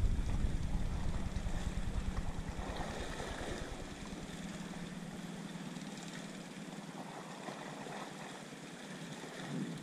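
Steady rushing noise of wind and sea water, with a low rumble that dies away about four seconds in.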